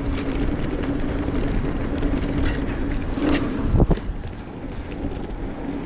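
Kona Process mountain bike rolling over a dirt trail: tyre and drivetrain noise with a steady hum and wind on the microphone, and one sharp knock a little under four seconds in as the bike hits a bump.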